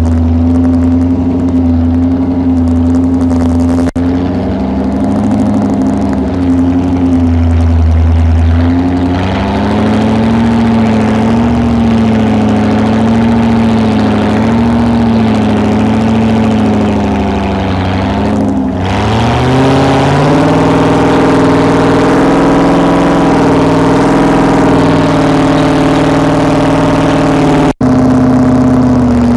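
V8 engine swapped into a small vintage tractor, breathing through open upright stack exhausts, running steadily under load while pulling a cultivator through soil. Its note wavers with the load and climbs to a higher pitch about two-thirds of the way through.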